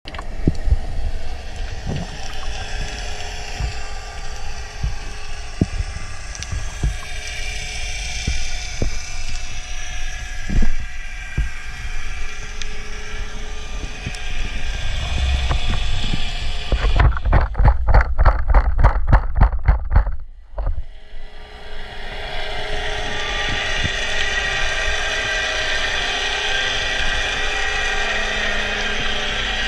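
Underwater noise picked up by a camera in a waterproof housing: a steady rushing, with scattered clicks and knocks. A little past halfway there are about three seconds of rhythmic pulsing at about four beats a second, then a brief drop before the rushing returns.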